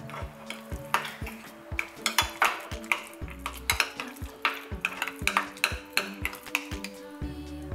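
Metal spoon stirring yogurt into mashed sweet potato in a glass mug, with many quick clinks and scrapes against the glass, over background music with a steady beat.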